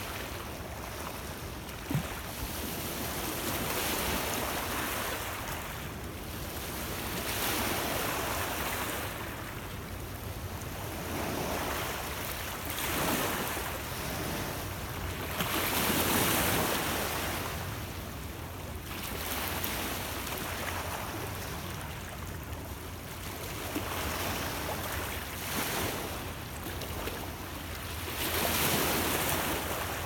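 Small lake waves breaking and washing over a shore of rounded stones, swelling and ebbing every few seconds, the biggest surge about halfway through. Steady wind runs underneath.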